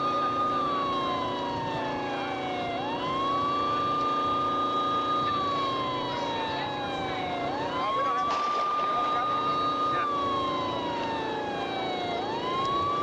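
Police siren in a slow wail: each cycle rises quickly, holds high for about two seconds, then slides steadily down, repeating about every five seconds, three times. A steady low hum runs beneath, and a short burst of noise comes about eight seconds in.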